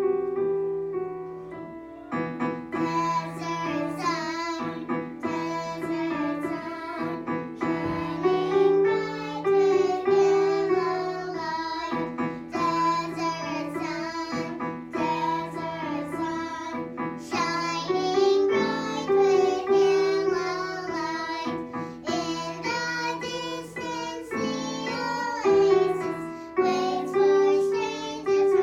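A child singing a song with piano accompaniment, starting about two seconds in.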